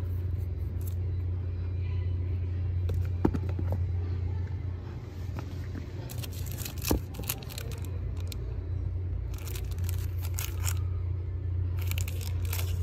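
Plastic-wrapped stationery packs crinkling and rustling as they are handled and pulled from a bin, in bursts about six, nine and twelve seconds in, over a steady low hum.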